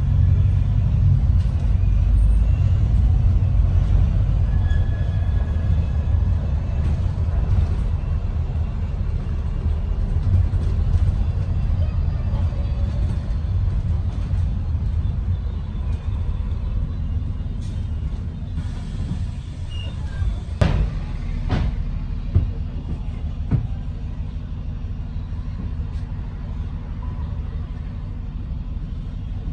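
ADL Enviro 400 MMC double-decker bus driving, heard from inside the cabin: a steady low rumble of engine and road noise, with a few sharp knocks and rattles about two-thirds of the way through.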